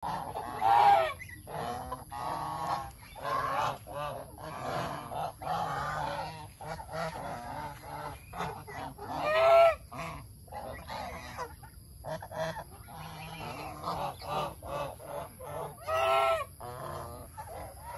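A flock of domestic geese honking over and over, calls overlapping one another, with three louder honks standing out: about a second in, about halfway through, and near the end.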